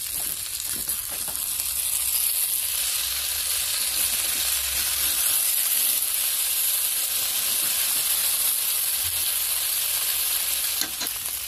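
Small fish frying in spiced oil in an iron kadhai, a steady sizzle that swells about two seconds in as a metal spatula turns the half-fried fish over, with a few faint scrapes of the spatula on the pan. It eases off near the end.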